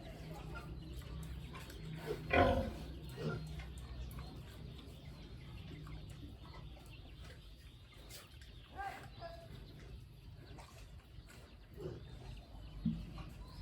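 Pigs calling now and then over a steady low hum: one loud, short cry about two seconds in, then a few fainter grunts and squeals later on.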